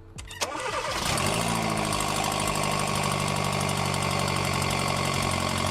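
Hyundai New Tucson's turbocharged engine catching about half a second in and settling to a steady idle. Over the idle runs a rapid ticking puff, the loud exhaust gas leak at the turbocharger's exhaust manifold.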